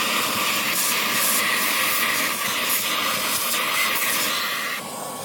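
Steady spraying hiss of a cleaning jet blasting dirt off the ABS sensor mounting area, easing off near the end.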